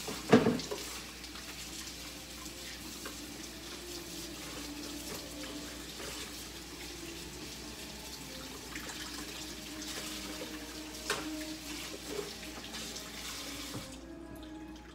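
Kitchen tap running into a sink, a steady rush of water that cuts off about a second before the end. A sharp knock comes just after the start, and a couple of faint clicks come near the end.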